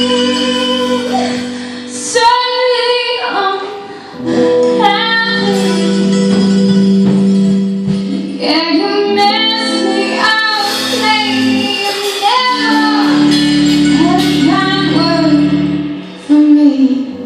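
Live band music: a woman singing over acoustic guitar, mandolin, electric bass and drums.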